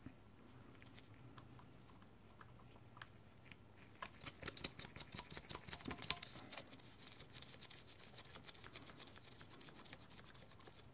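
Faint, quick small metallic clicks and ticks as cylinder head nuts and washers are spun by hand down their studs. The clicking is thickest about four to seven seconds in.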